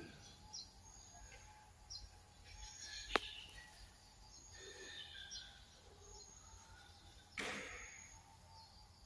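Faint chapel ambience with scattered distant bird chirps, a single sharp click about three seconds in, and a short swish about seven and a half seconds in.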